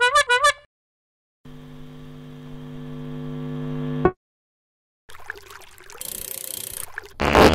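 A string of separate sound effects. First a short warbling blip that wobbles in pitch, then after a pause a steady hum of several tones that grows louder and cuts off suddenly. Then comes a noisy hiss, and a loud rushing burst near the end.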